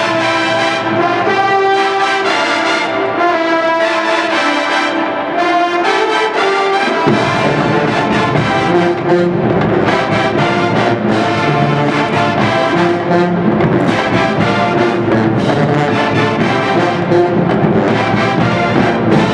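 College marching band playing, brass to the fore. About seven seconds in, the band's low end comes in under the brass and the sound fills out.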